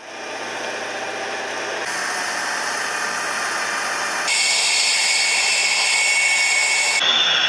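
Sukhoi Su-35 fighter's turbofan engines running on the ground: a steady rush with a turbine whine. The sound changes abruptly twice and is louder from about four seconds in, with a sharper high whine.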